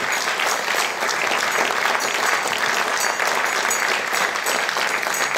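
Studio audience applauding, with steady, dense clapping.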